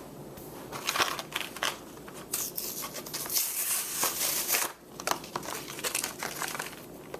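Packaging of a new window thermometer being crinkled and torn open by hand, in irregular rustling and crackling bursts.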